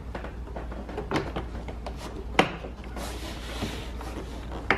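Plastic car door trim panel being pressed and slid into place against the door: a few sharp knocks, the loudest about halfway through and another at the very end, and a scraping rub about three seconds in.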